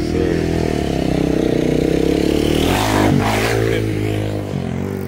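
Motorcycle engine running, revving up briefly about three seconds in and dropping back.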